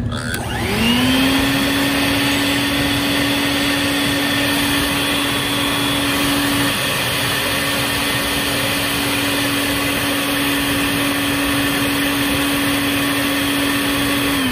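Bucket-top wet/dry shop vac powerhead, hosed to a plumbing vent stack to blow smoke in for a smoke test. It is switched on about half a second in, spins up quickly to a steady whine over a rush of air, and is switched off at the very end, starting to wind down.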